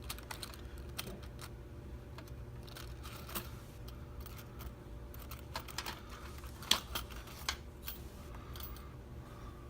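Small metal lockpicking tools, tension wrenches and picks, being handled and sorted through: irregular light clicks and clinks, with a few sharper ones, over a low steady hum.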